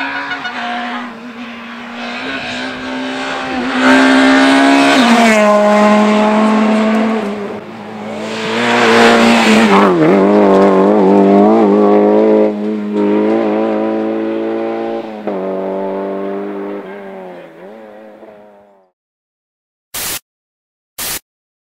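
Rally cars driven flat out past on a tarmac road, engines held at high revs. The loudest car passes close about ten seconds in, its pitch dropping as it goes by, and the engine sound fades away. Two short hiss-like blasts come near the end.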